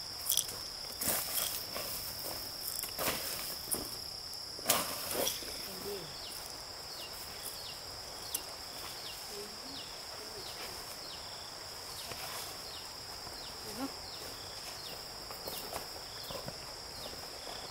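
Insects droning steadily at a high pitch, with short falling chirps repeating about twice a second through the second half and a few sharp knocks in the first five seconds.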